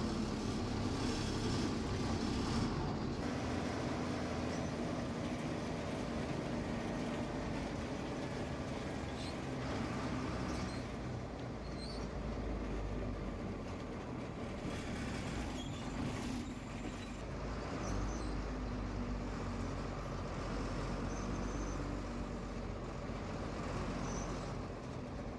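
MSRTC state transport bus's diesel engine running steadily as the bus pulls away and drives through town, heard from inside the cab.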